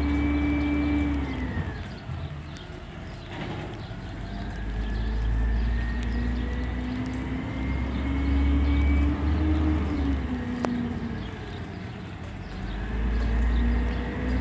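Diesel engine of a Condor garbage truck with an Amrep Octo automated side-loader body, revving up and dropping back a few times. Each time a whine climbs and falls with it, the engine driving the hydraulics for the arm and the moves between carts.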